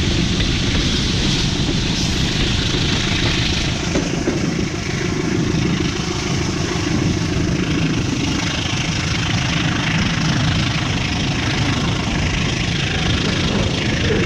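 Passenger train running at speed along the track, a steady rush of rolling and wind noise heard from beside the carriage.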